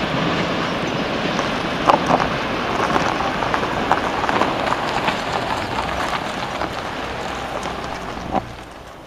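Freight train of tank wagons rolling past and away: a steady rumble of wheels on rail with irregular clicks and knocks as the wheels cross rail joints, slowly fading. One short knock stands out near the end.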